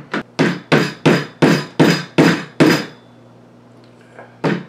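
Hammer striking a metal punch to drive the retaining peg (mekugi) out of a katana's handle, steady sharp taps about three a second. The tapping stops for about a second and a half, then starts again near the end.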